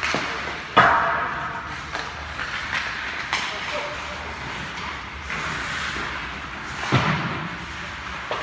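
Ice hockey play from rinkside: skates scraping on the ice and sharp knocks of puck, sticks and bodies against the boards. The loudest knock comes about a second in, a smaller one around three seconds and another near seven seconds.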